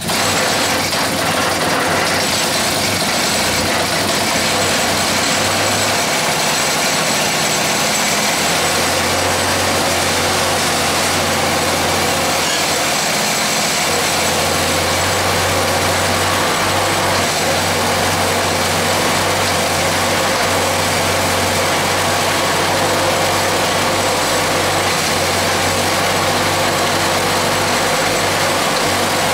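Small air-cooled single-cylinder engine, run on a bench without its cooling fan and shroud, catches at once and keeps running steadily. It is a heat run to see whether the engine can go without the fan.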